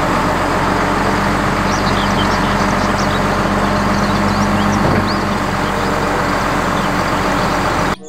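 Heavy rollback tow truck running steadily with a constant low hum while its hydraulic tilt bed slides along the chassis. The sound cuts off suddenly at the end.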